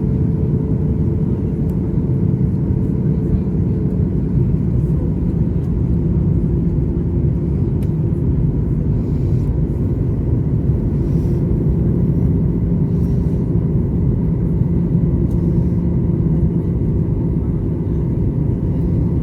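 Steady airliner cabin noise: a low, even drone of engines and airflow heard from inside the passenger cabin, with a constant hum running through it.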